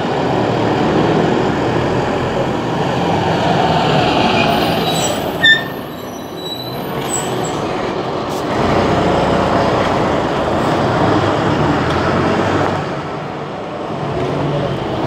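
City bus driving past close by, its engine and tyres making a steady rumble that swells twice. About five seconds in there is a sharp knock and a brief high squeal.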